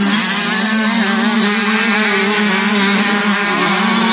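Pack of 125cc youth grasstrack motorcycles racing past at high revs. Their engines blend into a steady, loud drone with wavering pitches above it.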